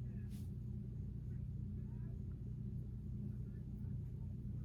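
A steady low hum, with a faint short rustle about a third of a second in.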